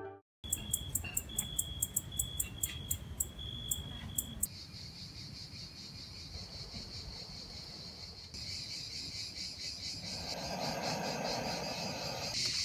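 Crickets chirping in a steady high chorus; for the first few seconds a sharp chirp repeats about three to four times a second over a thin whistling tone. A soft rushing noise joins near the end.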